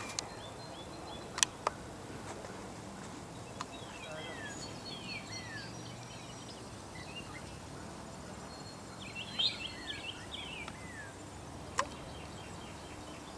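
Songbirds calling in short falling whistles, in two runs, over a steady outdoor hiss, with a few sharp clicks scattered through.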